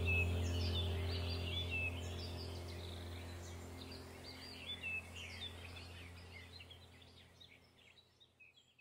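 Small birds chirping over a steady low hum, the whole sound fading out gradually.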